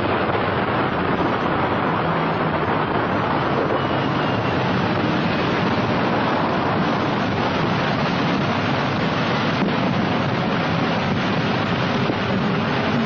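Steady rushing roar from the Ripple Rock underwater explosion, even and unbroken with no separate bangs, heard through the dull, muffled sound of an old newsreel soundtrack.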